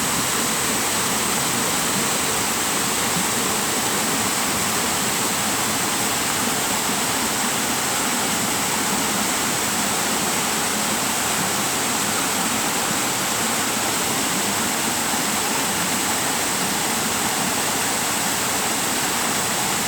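Waterfall water pouring and splashing in a steady, even rush, with a thin high hiss holding steady above it.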